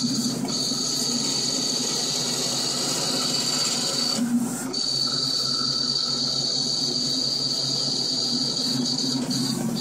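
Computer-controlled plotter cutter running as its blade head cuts a stencil mask, its drive motors giving a steady high whine over a lower hum. The whine stops for a moment a little past four seconds in, then resumes.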